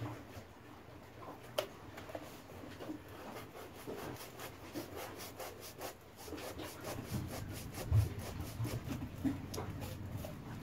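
Small knife shaving and scraping the hard foam of a round fishing buoy in many short, quick strokes, with a dull thump about eight seconds in.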